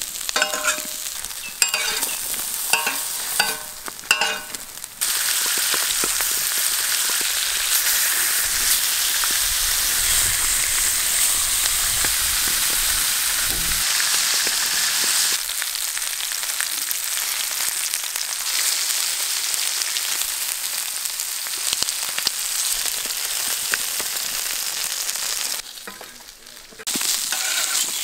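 Salmon pieces sizzling in oil on a flat metal griddle. For the first few seconds a metal spatula scrapes and clinks against the pan, leaving short ringing tones. Then a steady loud sizzle runs on, dropping away briefly near the end.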